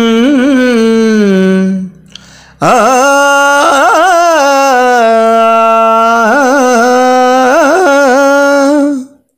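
A male voice singing a Telugu padyam in a Carnatic-style raga, with no words in these phrases: long held notes with wavering ornaments. There are two long phrases, split by a short break about two seconds in.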